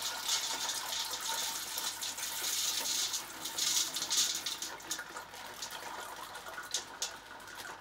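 Dry black beans poured from a plastic bag into a large stainless steel pot of water, a dense hissing patter of beans splashing in that is strongest for the first four seconds or so and then thins out, with a few sharp clicks near the end.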